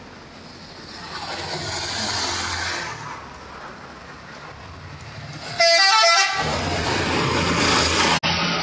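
A passing bus's loud engine and road noise, broken about five and a half seconds in by a short blast of a multi-tone 'telolet' bus horn, a quick run of changing notes, the loudest sound. The vehicle noise carries on loud until a sudden cut near the end.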